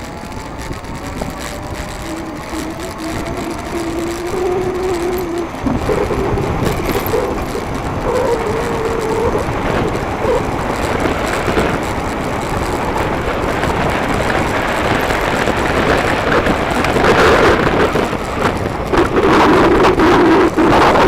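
Electric bike motor whining, rising slowly in pitch as the bike picks up speed, with wind and road noise on the microphone growing steadily louder.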